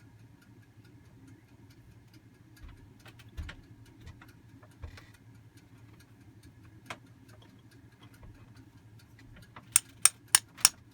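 A few faint clicks of metal parts being handled over a low steady hum, then near the end a run of sharp metal taps, about three a second, as a tool is tapped against the fuel distributor to knock loose its jammed piston.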